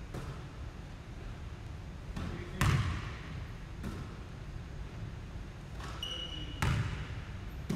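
Basketballs bouncing on a hardwood gym floor: several separate thuds echoing in the large hall, two of them louder, about two and a half and six and a half seconds in. A brief high squeak comes just before the second loud bounce.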